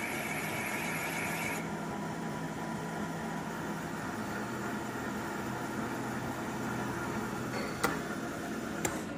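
Bed mill with a boring head running in a cast iron sleeve, with a high squeal from the cut that stops about a second and a half in as the cut ends. The spindle and motor keep running steadily; near the end there are two sharp clicks, then the pitch falls as the machine winds down.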